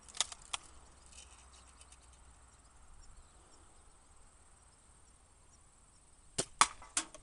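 Daisy Red Ryder lever-action spring-air BB gun shooting: two sharp snaps near the start, then a quick cluster of three about six and a half seconds in. Insects chirr steadily and faintly underneath.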